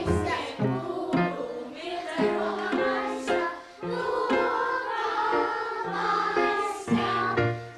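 A choir, with children's voices among them, singing a song over instrumental backing, in long held notes.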